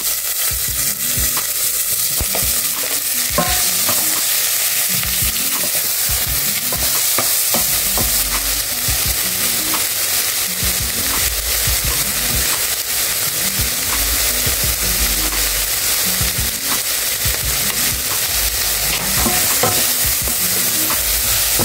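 Chopped onions frying in oil in a stainless steel pot, sizzling steadily, while a wooden spoon stirs them with frequent short knocks and scrapes against the pot.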